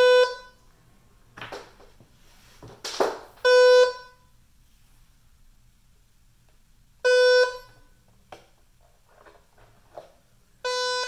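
Nellcor OxiMax N-600x pulse oximeter sounding its error alarm: a short buzzy beep repeated about every three and a half seconds, four times, the last one quieter. Between the beeps, rustling and small clicks from the plastic housing being handled and its cover fitted.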